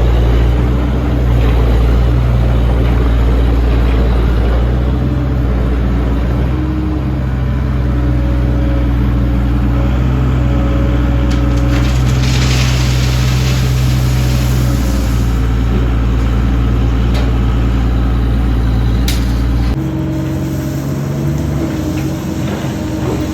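A large engine running steadily with a deep, even hum, with a few light knocks and a short hiss partway through; the engine note changes about twenty seconds in.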